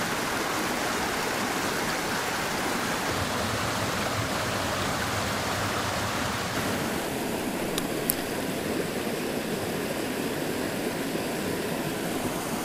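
Small river running over rocks in shallow riffles: a steady rush of flowing water, its tone changing slightly about seven seconds in, with two faint clicks shortly after.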